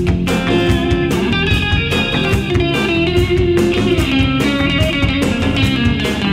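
Background music: guitar-led song, likely rock, with electric guitar over a steady drum beat.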